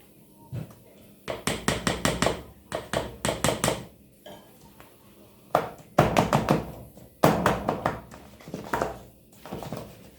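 A kitchen utensil tapping and scraping against a dish in quick runs of sharp strokes, about five a second, broken by short pauses.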